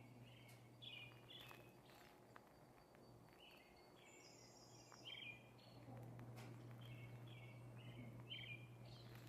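Faint bird chirps: short calls repeated all through, with a brief higher trill about halfway, over a low steady hum.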